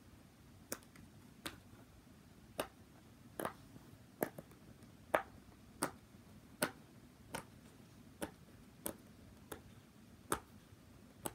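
Silicone pop-it fidget toy bubbles being pressed in by fingers one at a time, each giving a sharp little pop, about one a second or a little faster.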